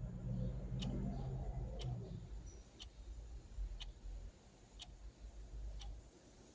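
Clock ticking steadily, one tick a second.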